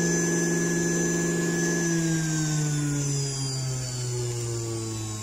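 Electric juicer motor running with a steady hum. About two seconds in, its pitch begins to fall slowly and keeps falling.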